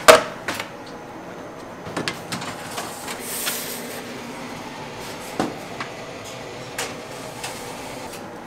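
Work clatter in a bakery kitchen: one loud sharp knock at the start, then scattered lighter knocks and clicks, with a brief hiss about three seconds in.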